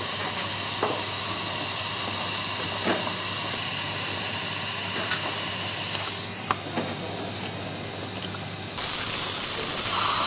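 Steady high hiss of surgical suction running at the open operating site, with a few faint clicks. Near the end a much louder burst of hiss starts suddenly and holds steady.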